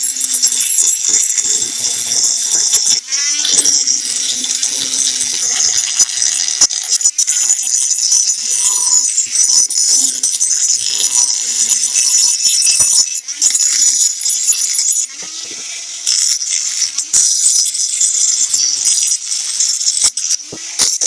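Flexible-shaft rotary tool spinning a sanding drum against a steel blade, a steady high-pitched grinding hiss that eases off briefly about fifteen seconds in.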